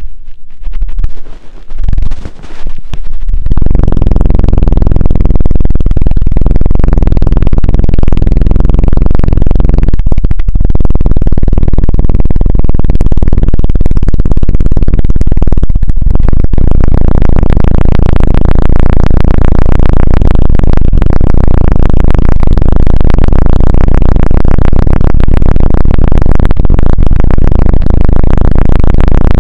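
Hands fluttering rapidly against a microphone in the ASMR 'helicopter' trigger: a loud, fast, continuous thudding, heavy in the bass. It starts about three seconds in and breaks off briefly twice partway through.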